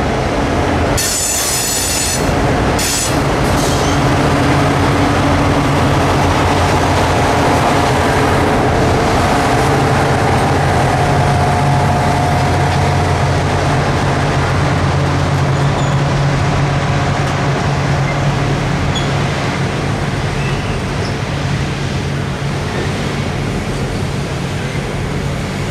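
Norfolk Southern passenger train rolling past: diesel F-units and then a long line of passenger cars, with a steady rumble of wheels on rail. Brief high metallic squeals come about a second in and again near three seconds.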